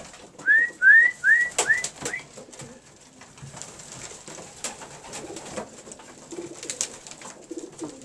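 Racing pigeons in a loft, wings flapping with a few sharp claps and soft cooing. Near the start, five quick rising chirps sound in a row, the loudest thing here.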